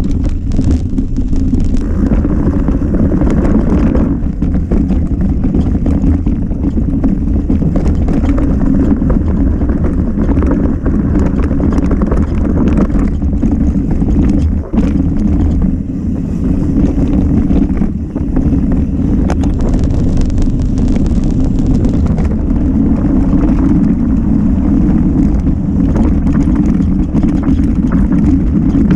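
Wind buffeting an action camera's microphone as a mountain bike descends fast, with a steady low rumble of tyres on the trail and frequent rattles and knocks from the bike over rough ground.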